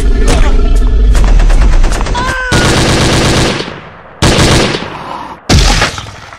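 Automatic gunfire sound effects: a long, loud burst of rapid machine-gun fire, then after a short break a second, shorter burst. Two more separate blasts follow in the second half, each dying away.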